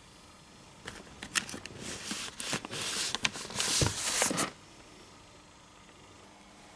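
A thin paper-covered book being pulled out from between other books on a shelf: covers sliding and scraping against each other, rustling with a few sharp clicks. It starts about a second in and stops after about three and a half seconds.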